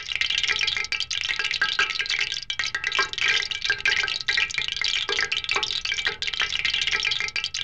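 Hot cooking oil in a wok sizzling with a dense, steady crackle as it heats for deep-frying a batter-coated chicken.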